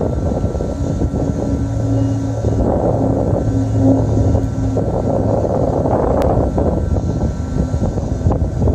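Class 444 Siemens Desiro electric multiple unit standing at the platform, its onboard equipment running with a steady low rumble. A clearer hum of two steady tones comes in from about two to five seconds in, and there is one sharp click about six seconds in.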